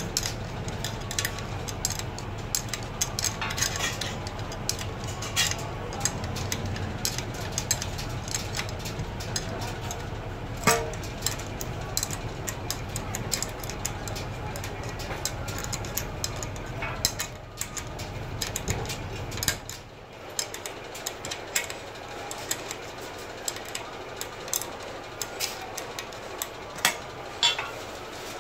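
Scattered metallic clicks and clinks from a spanner on nuts and steel mounting plates being handled while fitting an adjustable sink base, over a low steady hum that drops away about two-thirds of the way through.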